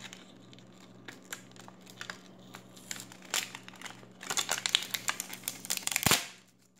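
Clear plastic packaging crinkling and crackling as it is pulled and peeled off a small toy quadcopter, with tape being torn away. The crackling grows dense about two-thirds of the way through and ends in a short thump.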